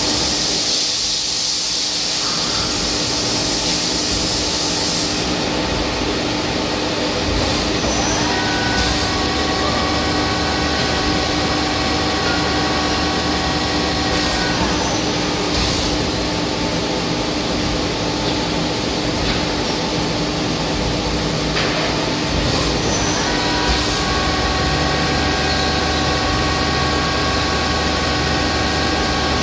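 GT2100 CNC lathe running a machining cycle: a steady machine hum with a hiss near the start. A high whine of the spindle at speed rises in about eight seconds in, stops some six seconds later and comes back near the end, with a few brief clicks.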